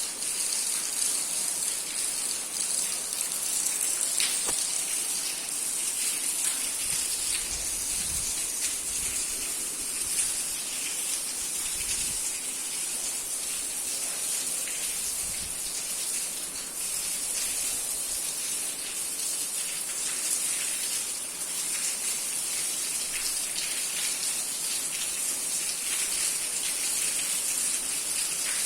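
Rain pouring down steadily, a dense hiss of falling drops pattering on surfaces.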